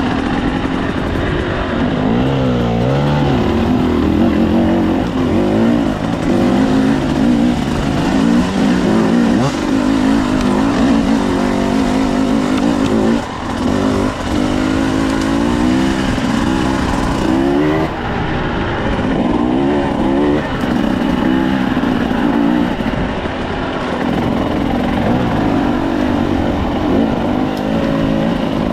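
KTM 300 EXC TBI two-stroke single-cylinder enduro engine being ridden, its revs rising and falling again and again as the throttle is worked, with a brief drop in level about halfway through.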